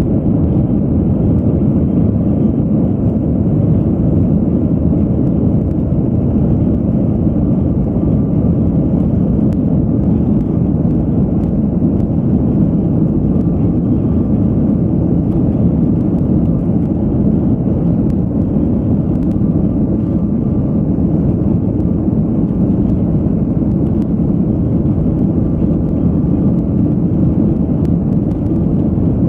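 Steady low rumbling roar of a moving vehicle, unchanging throughout.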